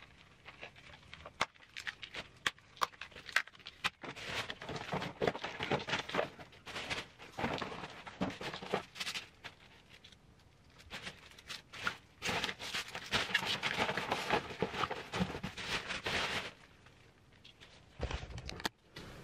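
A plastic carrier bag and plastic packaging rustling and crinkling in irregular bursts as wrappings are handled and dropped in, with scattered small clicks from boxes and packaging. Near the end, a short low rumble as the camera is handled.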